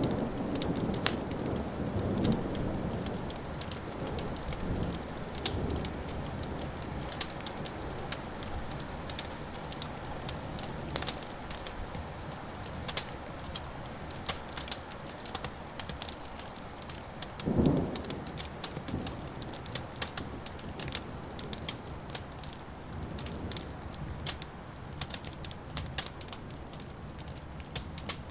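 Wood fire crackling with scattered sharp pops, over low rolling thunder that fades away over the first several seconds. A brief low boom comes a little past halfway.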